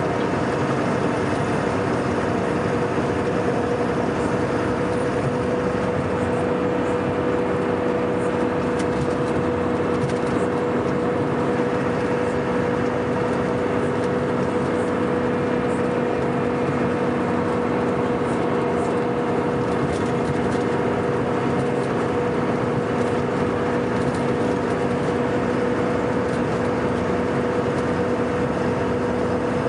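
Scania K420 coach's diesel engine running at a steady speed: an even, unchanging drone with a constant hum.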